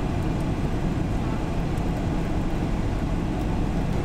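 Fiat Ducato camper van driving, heard from inside the cab: steady low diesel engine and road noise.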